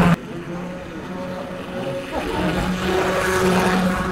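O gauge model train running on its track, heard close up from on board: a steady electric-motor hum over the rumble of wheels on the rails. The level drops sharply just after the start, then grows louder again in the second half.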